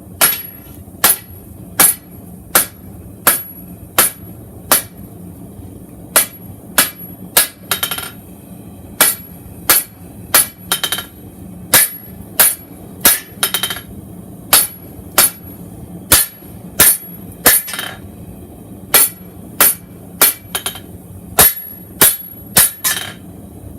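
Hand hammer striking hot steel on an anvil, drawing out the taper of a forged chef's knife blade. Sharp, ringing blows come about one to two a second in runs, with brief pauses between runs.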